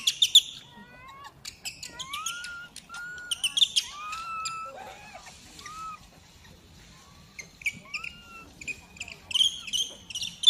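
Infant macaque crying: a run of short, arched, whistle-like cries, roughly one every half second to second, with louder, shriller squeals near the start and end. It is the distress calling of a baby being weaned by its mother.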